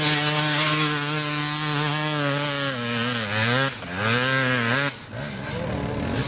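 Enduro dirt-bike engine held at high revs, its pitch dipping and picking up again about three and a half seconds in, then dropping away abruptly near five seconds in.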